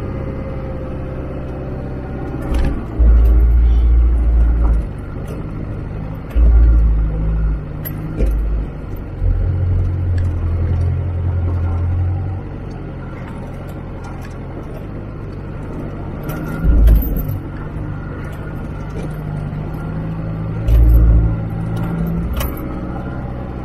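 A 4x4 crawling over a rough, rocky dirt track, heard from the vehicle: a steady low engine drone, with several louder low rumbles lasting a second or two as it lurches over bumps. Short rattles and knocks of the body and loose gear come through.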